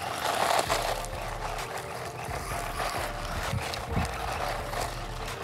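Eachine EAT10 1/18-scale brushless RC truck driving across loose gravel: a steady noise from its motor and tyres, with scattered clicks of stones, louder in the first second.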